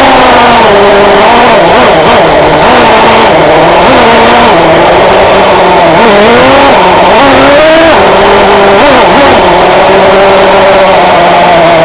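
Traxxas Jato 3.3's two-stroke nitro engine running at high revs, its pitch rising and falling over and over as the throttle is worked. Near the end it steadies at a lower pitch.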